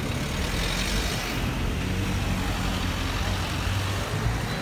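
Road traffic with a motor vehicle's engine running: a steady low rumble.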